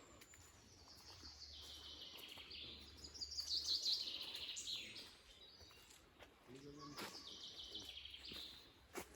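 Songbird singing in the woods: two long phrases of quick, high, chattering notes, the first and louder one lasting a few seconds, the second starting about seven seconds in.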